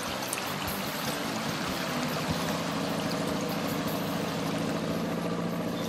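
Piper Super Cub bush plane's engine running at a steady note, with a steady rushing hiss over it.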